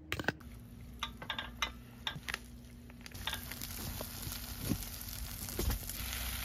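Fried rice sizzling in a nonstick pot on a portable gas stove, with a few short scrapes and clicks in the first half; the sizzle swells from about three seconds in and stays loud.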